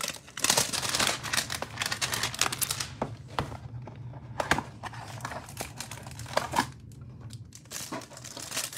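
Cardboard hanger box of 2021 Panini Rookies & Stars football cards being opened and its cellophane-wrapped stack of cards handled: continuous crinkling and tearing of cardboard and plastic wrap. It is busiest in the first three seconds, with shorter flare-ups later.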